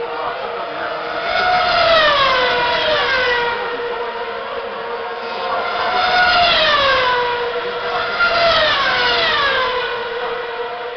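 Formula One cars' 2.4-litre V8 engines at high revs as about three cars go by one after another. Each engine note rises and then falls in pitch as the car passes.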